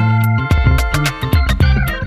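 Upbeat background music with plucked guitar, a bass line and a steady beat.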